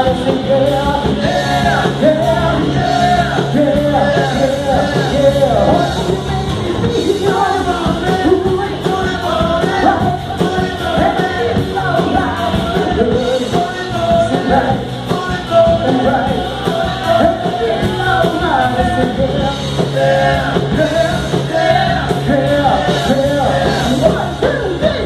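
Live rock-and-roll band playing loud, with electric guitar and drums and a melody line bending over them.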